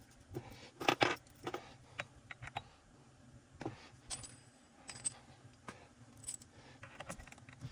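Light metallic clinks and taps of small screws and a steering wheel puller being handled and fitted, a scattered series of short clicks with the loudest cluster about a second in.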